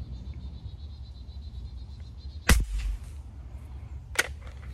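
One sharp shot from a .177 Umarex Heckler & Koch MP7 break-barrel air rifle about two and a half seconds in, with a short rattling tail, followed by a lighter click near the end.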